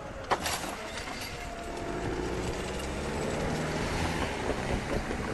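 Level-crossing barrier drive: a sharp clunk, then the electric motor's steady whir as the red-and-white boom with its hanging grid swings up, with a few small clicks near the end.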